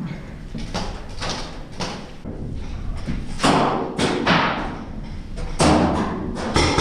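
Irregular thumps and knocks, about a dozen, inside a steel shipping container, the heaviest ones in the second half.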